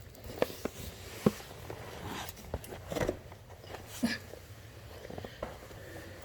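Scattered light knocks, clicks and clatter of tools and objects being handled and moved about, with a few sharper knocks about a second in and again around three and four seconds in.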